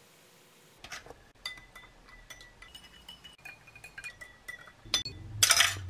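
A spoon clinking again and again against the sides of a cup while stirring tea, each tap leaving a short ring. Near the end comes a short, loud rushing noise.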